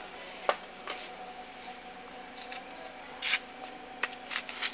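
Handling noise on a handheld phone: scattered short rustles and clicks at irregular moments, a sharp one about half a second in and a cluster near the end, over a faint steady hum.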